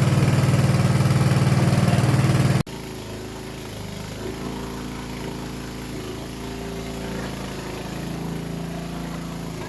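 A small engine running steadily. About two and a half seconds in, the loud running cuts off abruptly and gives way to a quieter engine hum whose pitch shifts a little.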